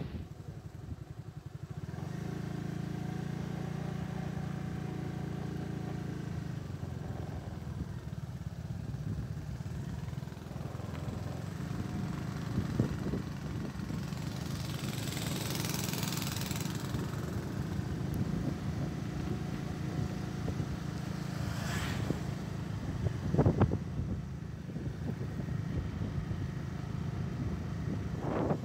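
Motorcycle engine running steadily while riding along a road, with passing motorbikes. A rush of louder noise comes about halfway through, and a few sharp knocks sound near the end.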